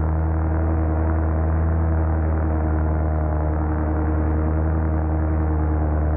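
Paramotor engine and propeller running steadily in cruise, a constant low drone with a buzzing overtone.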